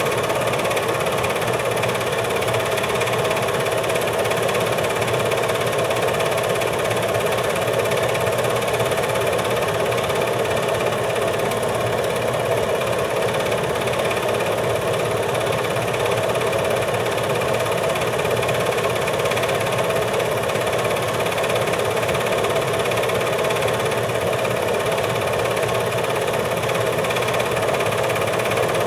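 8mm film projector running steadily, its motor and mechanism making an even mechanical whir with no change.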